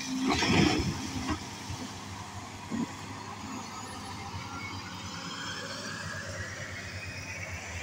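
Hyundai hydraulic excavator's diesel engine running steadily as it digs and lifts wet mud, with a loud noisy burst in the first second and a short knock about three seconds in. A hiss rises in pitch over the last few seconds.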